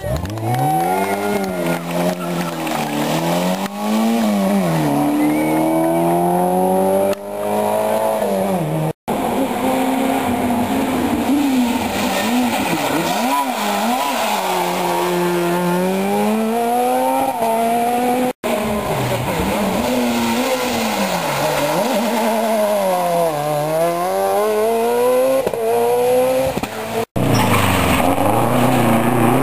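Rally car engines revving hard through tight corners, the pitch repeatedly climbing and dropping as the drivers accelerate, lift and change gear. Three brief silences split it into separate passes.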